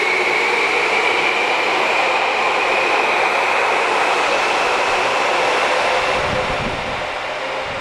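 Tokyu 8500 series electric train pulling out of an underground station, its traction motors and cooling fans very loud, with a motor whine that rises slowly in pitch. The sound eases as the train draws away near the end.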